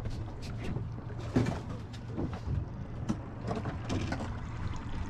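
Water slapping and splashing irregularly against a small fishing boat's hull, over a steady low rumble.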